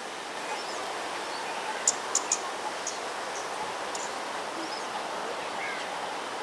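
Steady outdoor park background noise with a few short, high bird chirps, bunched in a quick cluster about two seconds in.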